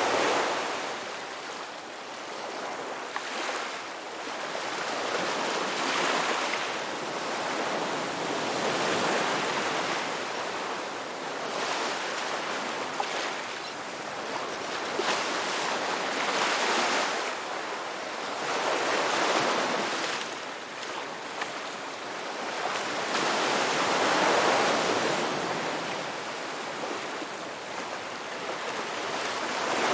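Ocean waves breaking on a rocky beach, the surf swelling and falling back every three to four seconds.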